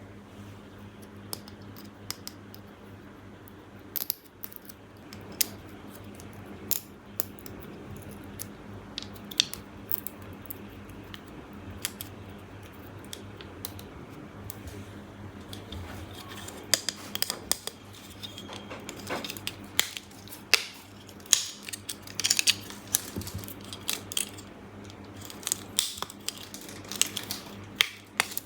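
Small hard plastic toy pieces being handled, set down and fitted together, making scattered sharp clicks and taps. These grow busier from about halfway through, over a low steady hum.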